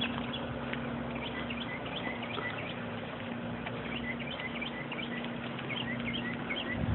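Small birds chirping, many short calls throughout, over a steady low hum and outdoor background noise.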